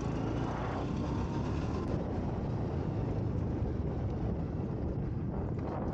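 Motorcycle engine running steadily while riding along, with road and wind noise on top.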